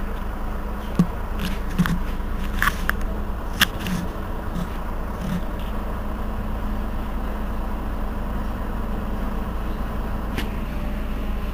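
Heuliez GX 327 city bus's rear-mounted engine idling at a stop, a steady low drone heard from behind the bus. A few sharp clicks and knocks come in the first four seconds.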